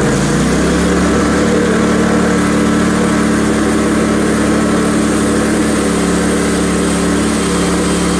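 Portable bandsaw sawmill's gasoline engine revving up in the first second, then running steadily under load as the band blade cuts through an ash burl.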